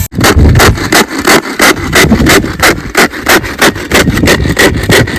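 Onion-tomato gravy being ground by hand: rhythmic rubbing, grinding strokes, about three a second.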